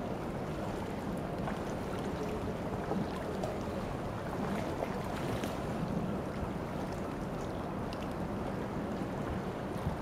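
Steady outdoor background noise: an even low rumble with a few faint ticks scattered through it.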